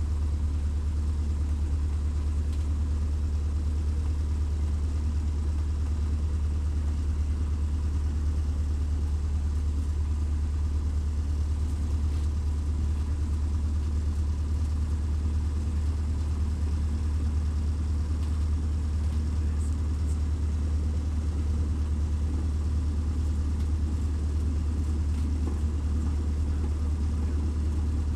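Cessna 152's four-cylinder Lycoming engine and propeller running steadily at low power while taxiing, heard from inside the cockpit as an even, deep hum that does not change.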